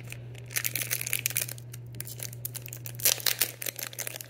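Foil Pokémon booster pack wrapper crinkling and crackling in the hands in irregular bursts, over a steady low hum.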